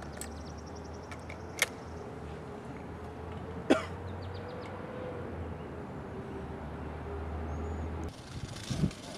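A man gives one short cough about four seconds in, over a steady low outdoor hum. There is a sharp click a little before it, and the background sound changes abruptly just after eight seconds.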